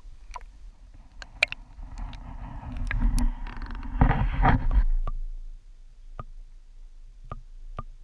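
Muffled sound picked up by an underwater camera in a pond: scattered small clicks, and about two seconds in a louder rumbling, swishing stretch of water moving around the camera that dies away about five seconds in.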